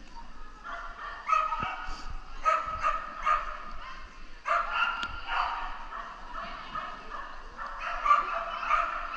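A dog barking over and over, short high barks coming about one to two a second.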